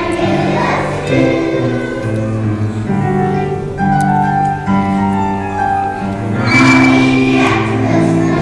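A children's choir of first graders singing a song together in long, held notes.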